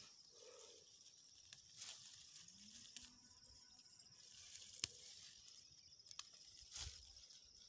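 Near silence: faint outdoor ambience with a steady high-pitched hum, and a few soft clicks and rustles of leaves being handled.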